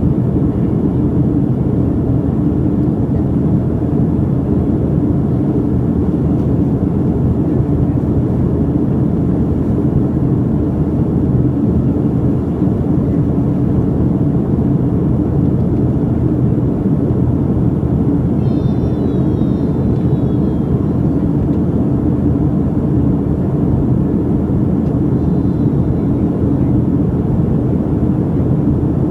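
Airliner cabin noise in flight: a steady low rush of engines and airflow heard inside the cabin, with a faint hum.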